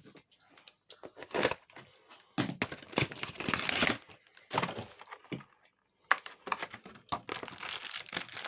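Trading card booster pack wrapper being torn open and crinkled, in irregular rustling bursts, loudest about two and a half to four seconds in.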